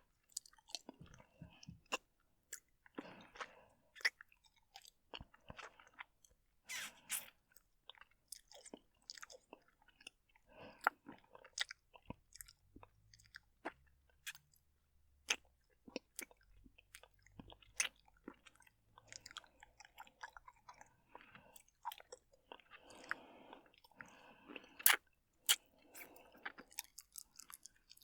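Wet licking and sucking mouth sounds: irregular smacks and sharp clicks with brief slurping patches, close to the microphone.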